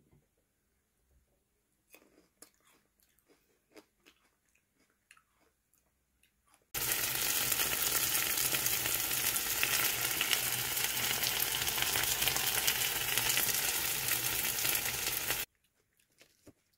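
Food frying in a pan: a loud, steady crackling sizzle that starts abruptly about seven seconds in and cuts off abruptly after about nine seconds, preceded by faint clicks and taps.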